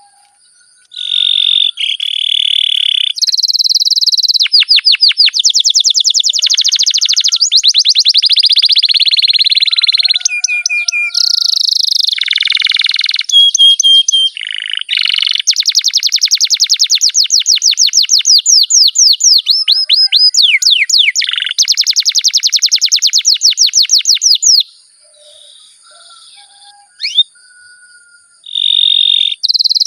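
Domestic canary singing a long song of fast rolling trills, one run of rapidly repeated notes after another, with short whistled notes between. The song breaks off for a few seconds near the end, then starts again.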